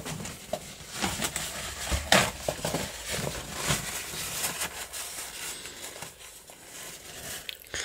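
Paper towel crinkling and rustling as a metal lock-cylinder plug is wiped clean in it, with scattered small clicks and taps from the metal parts being handled.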